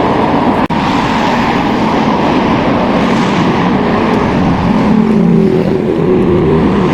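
Steady loud rumbling noise, with one short click under a second in.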